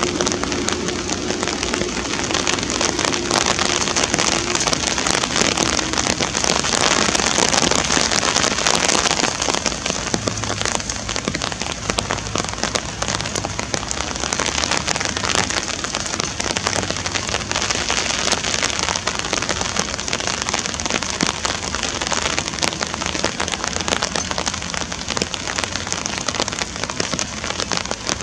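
Steady rain falling on open water: a dense, even hiss of many small drops.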